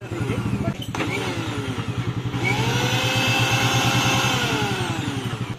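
Electric mixer-grinder churning lassi in its plastic jar. The motor runs loud and steady, its whine rising in pitch about two seconds in and winding down near the end.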